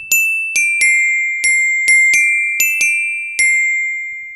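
Outro music: a short tune of high, bell-like mallet notes, about nine struck at an uneven pace, each ringing and decaying, the last one fading out near the end.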